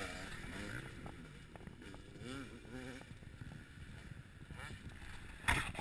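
KTM 250 two-stroke motocross bike revving up and down through its gears as it rides past on the dirt track, with wind noise on the microphone. There is a loud thump on the microphone near the end.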